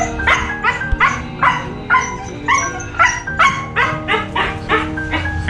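Siberian husky barking in quick, repeated yipping barks, two or three a second, over steady background music.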